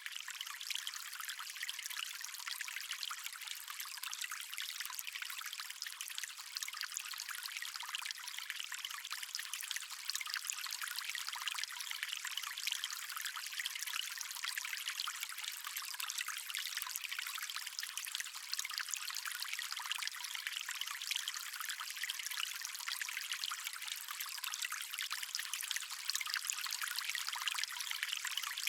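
A water stream flowing and trickling steadily: a continuous, even rush with no deep rumble.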